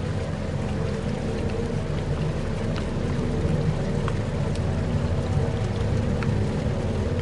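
Steady rain with a few scattered drops, over a low, steady rumbling drone in a dark ambient soundscape.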